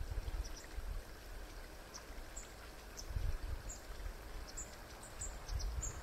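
Shallow woodland stream trickling steadily, with scattered short, high bird chirps and a few low rumbles, the strongest about three seconds in.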